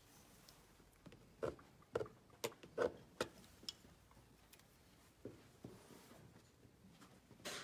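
Light taps and clicks, as of painting tools being handled: a quick run of six or so about one and a half to three and a half seconds in, two fainter ones after five seconds, and a louder knock near the end.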